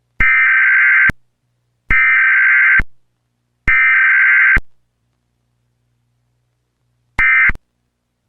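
Emergency Alert System SAME digital header: three harsh data bursts of about a second each, roughly a second apart, then after a pause a single much shorter burst near the end.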